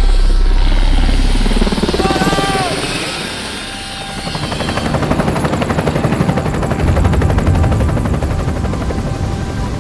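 Helicopter with a fast, even rotor chop that fades and then swells again.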